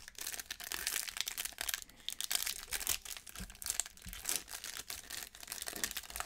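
Foil wrapper of a Topps baseball card pack crinkling and tearing as it is ripped open and handled by hand, an irregular run of crackles.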